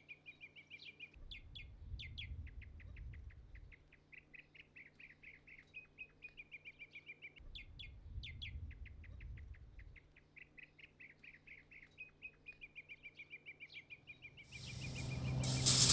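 A small bird chirping in quick, even series of short notes, faint and steady, with a low rumble coming and going underneath. Near the end a much louder rushing noise comes in.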